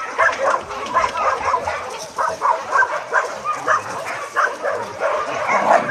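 A pack of dogs barking and yipping at once in many short overlapping barks: the dogs are excited.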